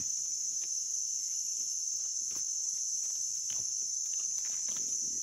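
Steady high-pitched insect chorus, with faint small rustles and snaps in dry leaf litter as a hand picks mushrooms.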